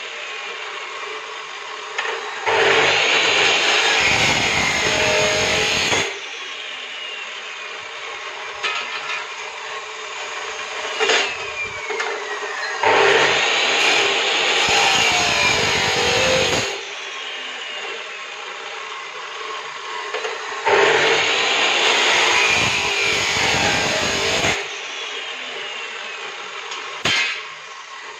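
HiKOKI abrasive chop saw cutting through steel bar three times, each cut lasting about four seconds, with quieter steady running between cuts. A few short clanks come near the end as the metal bars are moved.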